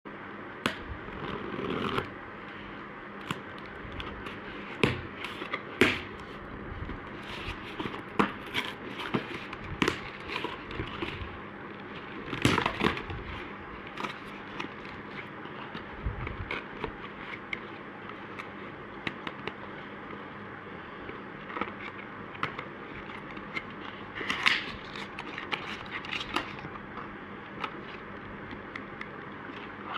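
Skin care product packaging being handled and unboxed: irregular clicks, crinkling and scraping of boxes, wrapping and containers, with a louder cluster about twelve seconds in.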